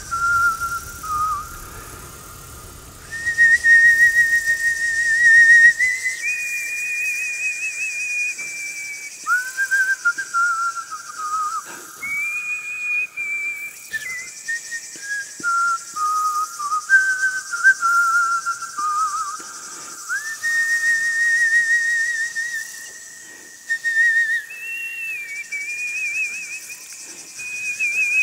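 Whistling of a slow melody: long held notes with a wavering vibrato and small trills, moving up and down in steps from phrase to phrase.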